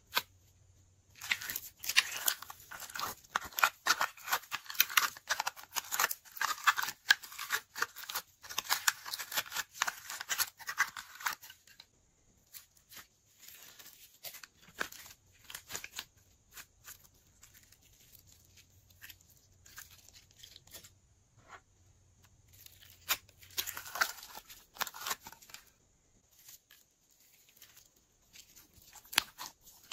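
Glitter slime being squeezed, poked and stretched by hand, giving dense crackling clicks for about the first ten seconds. The clicks then thin out, with another crackly stretch a little before the end.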